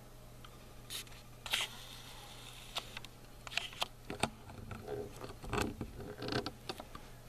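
Handling noise: a string of irregular clicks, scrapes and rustles from the camera being moved and repositioned, busier in the second half.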